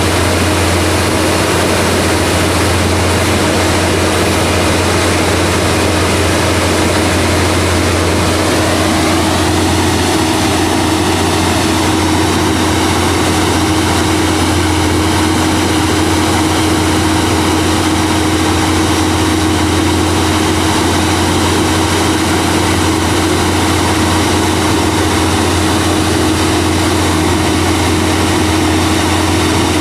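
Heavy diesel engine running steadily at a constant speed, a loud even hum with a steady tone over it and a slight shift in tone about nine seconds in.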